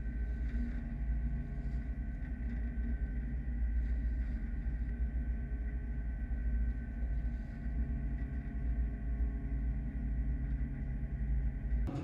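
Boat machinery driving a gillnet lifter runs steadily: a low rumble with faint, steady high-pitched whining tones above it.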